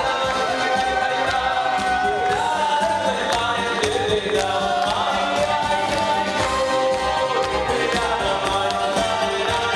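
Music: a song sung by a group of voices with instrumental accompaniment, the festive kind of song played for wedding dancing.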